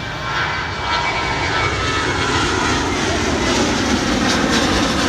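Airliner's engines passing close, growing louder over the first second and then holding at a loud, steady level.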